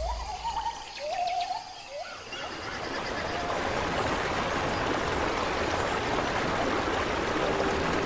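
Waterfall rushing, fading in about two seconds in and staying steady. Before it, a bird gives short rising calls, about one a second; near the end a steady tone comes in.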